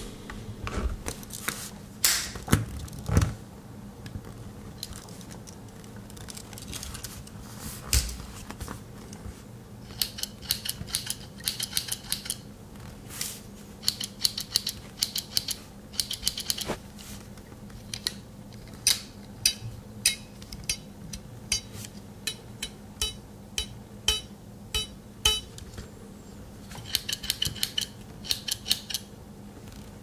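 Victorinox Explorer Swiss Army knife being handled, its blades and tools clicking and snapping as they are opened, worked and shut. The clicks come singly at first, then in quick runs of several.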